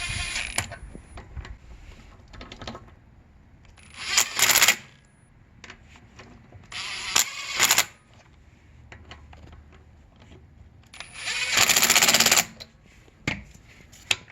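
Impact wrench spinning lug bolts in to fasten a wheel back onto the hub, in four short bursts of rattling hammering.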